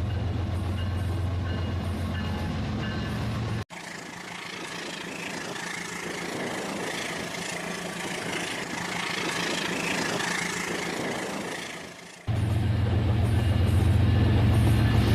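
Rail King model train running: a steady low motor hum that breaks off suddenly about four seconds in to a quieter rushing noise, then cuts back in near the end.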